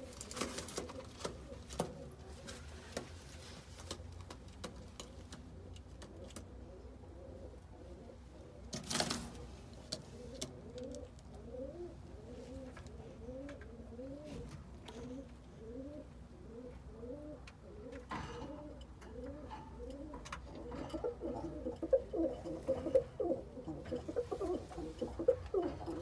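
Birmingham Roller pigeons cooing: a long run of short, repeated rising-and-falling coos, about one and a half a second, louder over the last few seconds. A brief rustle comes about nine seconds in.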